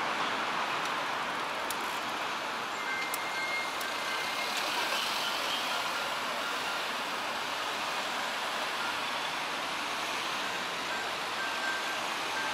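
City street traffic: cars driving past on the road, a steady wash of engine and tyre noise, with a few faint, short high tones scattered through it.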